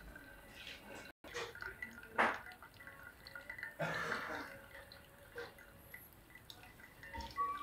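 Hot water from a TONE Touch 03 pour-over brewer's nozzle trickling into the wet coffee bed in a V60 filter, with brewed coffee dripping into the glass server below: irregular drips and small splashes, a couple of them louder.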